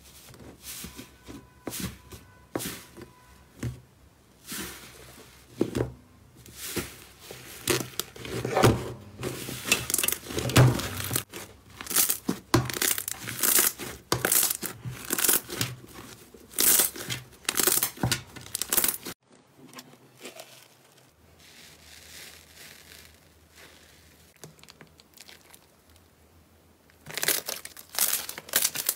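Slime being pressed, kneaded and pulled apart by hand, making irregular crackling, tearing and popping sounds. The sounds are loudest through the first two-thirds, drop suddenly to a quieter stretch, then grow louder again near the end as another slime is squeezed.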